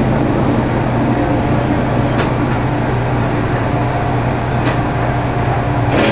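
Diesel railcar's engine running steadily with a low drone as the train comes to a halt and stands at a platform. Three short clicks sound about 2, 4.5 and 6 seconds in, with a faint high whine between the first two.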